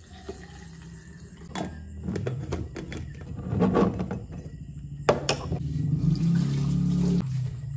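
Glass bottles and containers being handled and set down on a kitchen counter, with a few sharp knocks. Near the end, water runs from the tap into a container, its pitch rising as it fills.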